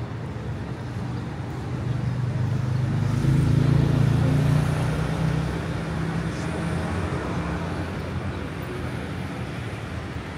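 A motor vehicle passes close by, its engine growing louder to a peak about four seconds in and then fading away, over steady street traffic noise.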